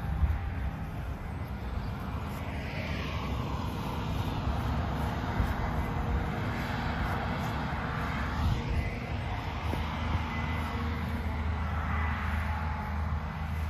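Steady low engine drone of farm machinery harvesting beans, with a hiss that swells and fades several times over it.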